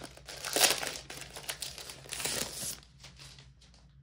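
Clear plastic shrink wrap crinkling and rustling as it is peeled off a boxed set, in a run of loud bursts that dies away after about three seconds.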